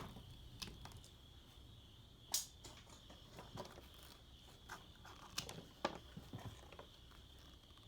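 Scattered light clicks and knocks from handling and cleaning up insulated copper wire, about seven over several seconds, over a steady high cricket trill.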